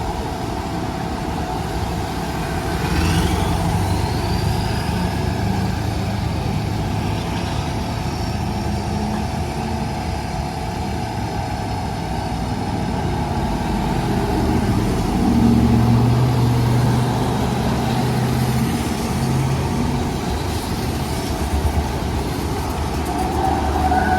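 A motor vehicle's engine running steadily under way, with road noise, growing a little louder about fifteen seconds in.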